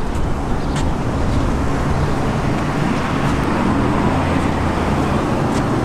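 Steady low rumble of outdoor background noise, with a couple of faint clicks.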